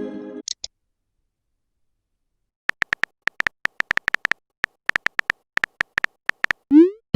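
Chat-app sound effects: a message chime fading out at the start, then about four seconds of short, high keyboard ticks at an uneven typing pace, and near the end a quick rising whoosh of a message being sent, followed by the start of another chime.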